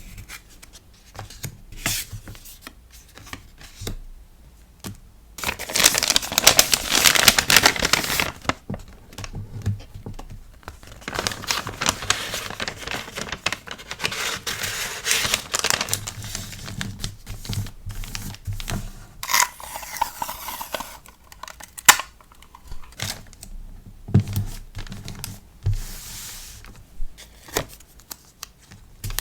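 Paper and plastic packaging being crinkled and torn by hand while an order is packed. There are two longer spells of crinkling, one a few seconds in and one around the middle, with light taps and clicks in between.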